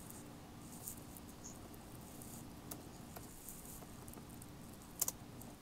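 Quiet room tone over a video call: a low steady hum with scattered faint clicks and ticks, and a sharper pair of clicks about five seconds in.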